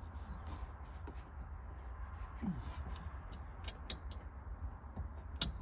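Scattered light clicks and taps of hand tools and bolt hardware being worked, a few close together in the middle and a sharper one near the end, over a low steady hum.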